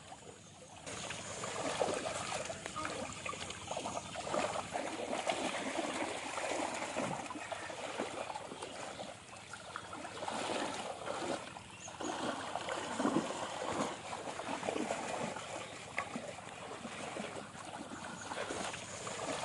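Shallow muddy pond water splashing and sloshing as children wade through it and grope about with their hands, the sound swelling and easing irregularly.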